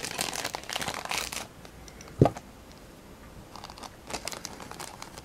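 A small clear plastic parts bag crinkling as it is handled and torn open, followed by one low thump about two seconds in and a few light clicks near the end.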